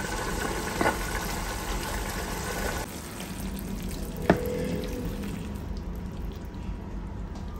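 Saucy vegetable stir-fry sizzling and simmering in a nonstick pan while a spatula stirs it; after about three seconds the sizzle drops away as the pan comes off the heat and the food is poured onto a plate. One sharp knock, the loudest sound, comes about four seconds in.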